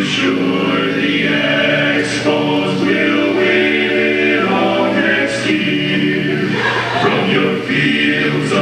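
Recorded a cappella vocal group singing in close harmony, several voices holding chords with no instruments, played back for a lip-synch performance.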